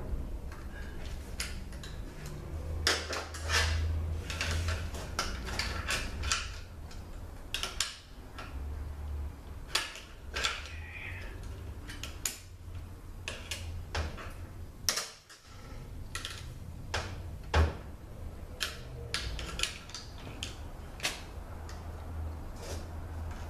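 Screwdriver and small pry bar clicking and scraping against the center-support snap ring inside a Toyota A340 automatic transmission case as the ring is worked out of its groove: a string of irregular metallic clicks and scrapes over a steady low hum.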